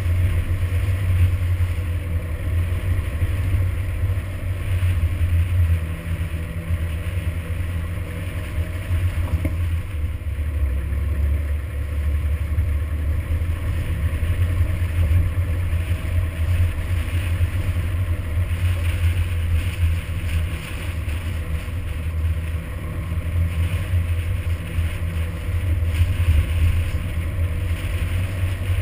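Toyota Hilux driving along a rough gravel track: a steady low engine and road rumble, with tyre and suspension noise from the stony surface.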